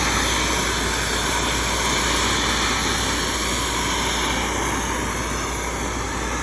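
Blowtorch flame burning with a steady roar against the exhaust, heating a muffler that is blocked with ice from frozen water.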